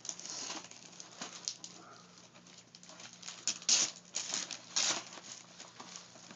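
Wrapping paper being rustled and torn off a gift, a string of short crinkles and rips, with two louder tears about three and a half and five seconds in.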